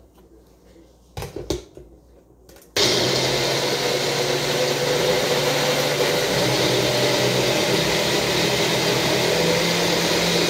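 A couple of knocks, then a countertop blender switches on about three seconds in and runs steadily, blending a protein shake of milk, banana and raspberries. Its motor hum shifts in pitch about six seconds in.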